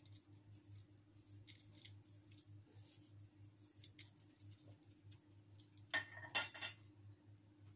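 Faint scattered ticks as seasoning is sprinkled by hand over fish in a stainless steel pan, then about six seconds in a brief loud clatter of metal as the pan is handled and set on the stove. A steady low hum runs underneath.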